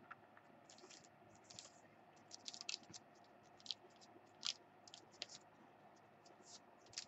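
Trading cards being handled and sorted by hand: faint, irregular crisp clicks and scratchy rustles of card stock sliding and flicking.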